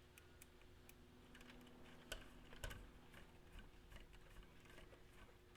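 Faint, irregular small clicks and taps of a hex driver and small metal hardware as a screw is turned in by hand, with a couple of slightly louder clicks about two seconds in, over a faint steady hum.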